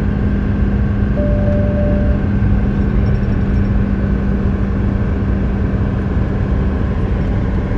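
Steady engine and road noise inside a semi-truck's cab cruising at highway speed, with a constant low hum. A short, steady beep sounds about a second in.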